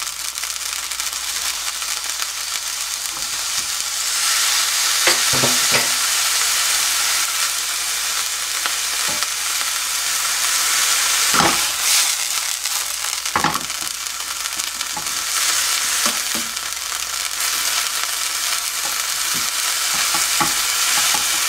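Ground pork with chopped green onion sizzling as it is stir-fried in a nonstick frying pan. A wooden spoon scrapes and knocks against the pan a few times.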